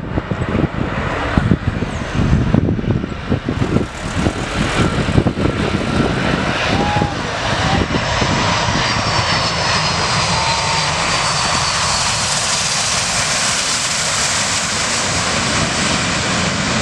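Boeing 747 jet engines running. The sound is gusty and uneven for the first few seconds, then settles about five seconds in into a steady roar with a faint high whine that slowly falls in pitch.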